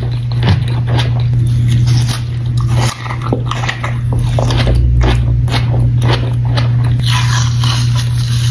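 Close-miked eating of a spicy onion boil: biting and chewing with many short, sharp mouth and food smacks, over a steady low hum.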